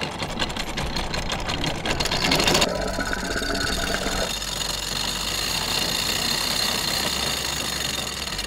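Electric anchor windlass paying out chain as the anchor is lowered, the chain rattling rapidly over the gypsy. About two and a half seconds in the sound changes abruptly to a steadier, denser rush.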